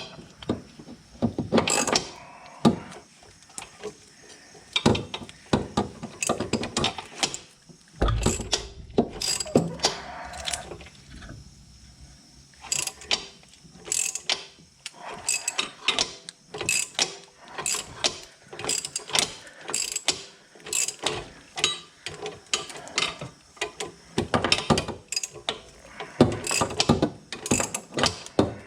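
Ratcheting wrench clicking in short irregular spells as it turns the nut on a rear sway bar link, with scattered metal clinks.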